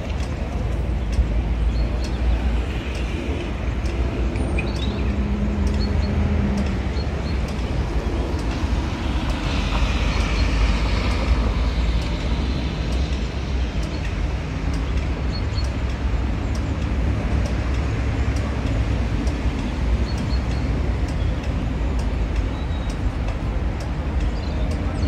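Street traffic noise: a steady low rumble, with a vehicle swelling past about ten seconds in and faint short high ticks now and then.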